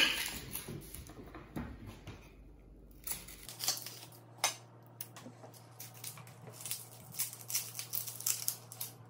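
A knife peeling and trimming a red onion on a wooden chopping board: irregular small clicks of the blade on the board and short papery crackles of the onion skin, with a sharp knock at the very start.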